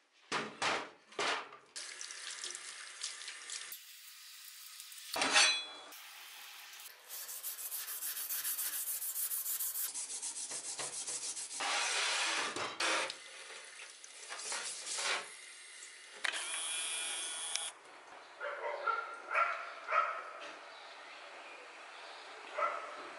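A steel butcher's axe head being rinsed and scrubbed in a stainless steel sink to wash off rust remover. Tap water runs and a steel wool pad rubs on the blade, with a few sharp knocks of metal against the sink in the first seconds.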